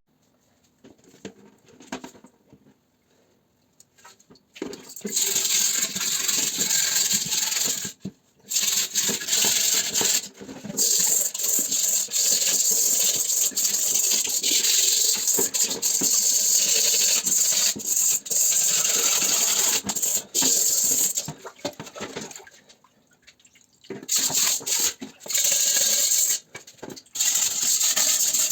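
Water running and splashing, starting about five seconds in, with brief breaks and a longer pause a few seconds before the end.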